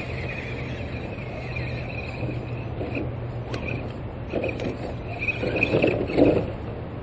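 Radio-controlled scale crawler truck climbing a log, its electric motor giving a faint whine, then scraping and knocking against the wood as it tips over, the loudest knock about six seconds in.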